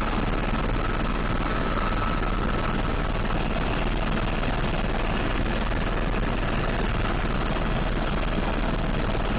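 Tour helicopter in flight, heard from inside the cabin: a loud, steady rush of engine and rotor noise with a low hum underneath, unchanging throughout.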